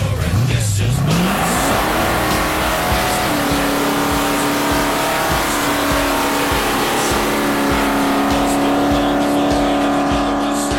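Car engine revving up over the first three seconds, then held at high, steady revs, as a car does when doing a burnout.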